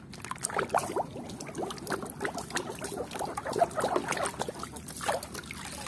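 Muddy water sloshing and splashing in a plastic tub as a hand scrubs a plastic toy cow under the surface, with an irregular patter of small splashes and drips.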